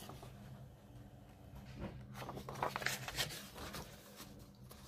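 Faint rustling of paper being handled, a few soft rustles and taps about two to three seconds in, over a low steady hum.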